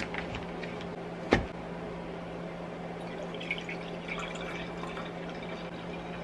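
Apple drink poured from a carton into a stemmed glass, the liquid splashing in from about three seconds in. A single sharp knock about a second in, over a steady low hum.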